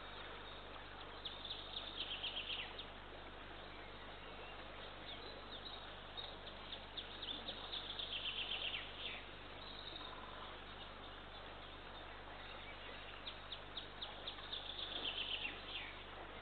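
A songbird singing in the dawn chorus: three short songs of rapid high notes that fall away at the end, several seconds apart, over steady background hiss.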